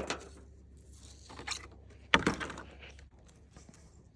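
Handling noises from working on a rubber wiper blade refill: a few clicks and knocks, the loudest a sharp knock with a brief rattle about two seconds in.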